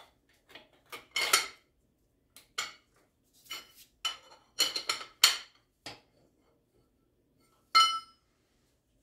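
Steel bracket and bolt clinking and tapping against the bushing end of a lower control arm as they are fitted by hand: a run of sharp metal clicks, several close together about halfway through, and one ringing clink near the end.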